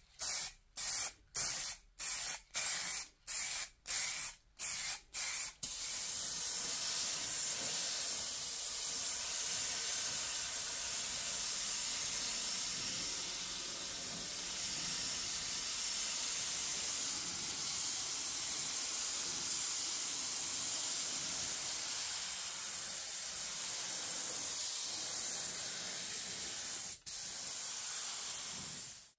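Paint being sprayed onto the plow's metal parts: a run of short bursts, about two a second, then one long continuous hiss with a brief break near the end.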